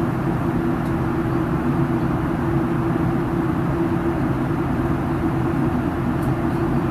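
Airliner cabin noise in flight: a steady low roar with a constant hum, unchanging throughout.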